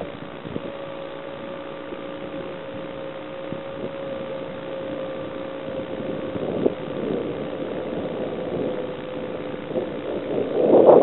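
Steady motor and propeller hum of a small radio-controlled FPV aircraft, heard through its onboard camera microphone, sinking slightly in pitch. Wind rush on the microphone grows loud near the end.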